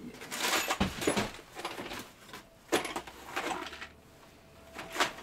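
Knocks, clinks and scraping of metal bolts and hand tools being handled during a repair under a tractor, in a few separate bursts.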